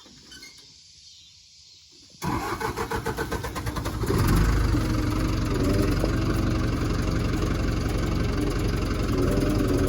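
Backhoe engine being cranked over and starting: about two seconds in, a quick pulsing churn for a couple of seconds, then it catches and runs steadily.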